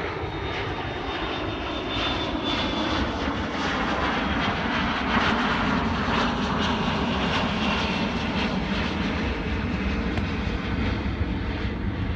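A steady roaring drone with faint whining tones, like a passing aircraft engine, growing a little louder about two seconds in and holding.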